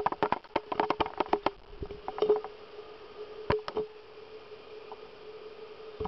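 A run of sharp, irregular clicks and cracks, dense for the first second and a half, then a short cluster about two seconds in and two more about three and a half seconds in, over a faint steady hum.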